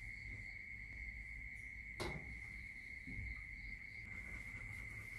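A cricket's continuous high-pitched trill, with one sharp click about two seconds in.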